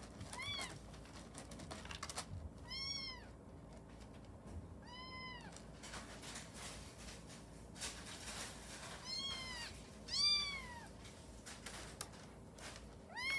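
Very young kitten meowing repeatedly: about six short, high meows a couple of seconds apart, each rising and falling in pitch, as it strains to pee in the litter box. A few faint clicks or rustles between the cries.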